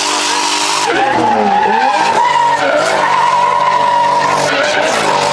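Nissan Skyline R34's RB25 straight-six revving hard, its pitch dipping and climbing again and again, with the tyres skidding through a drift.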